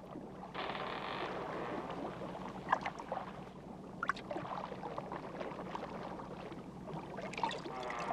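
Water sloshing and splashing, with a few light knocks and a steady low hum underneath.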